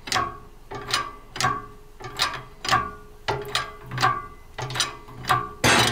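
Shop press being hand-pumped to drive a bearing race into a tractor pinion housing: a sharp metallic click with a short ring at each stroke, about two a second, and a louder crack near the end.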